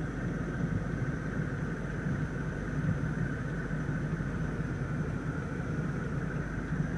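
Steady low hum and rumble inside the cabin of a 2014 BMW 650i Gran Coupe, its 4.4-litre twin-turbo V8 idling.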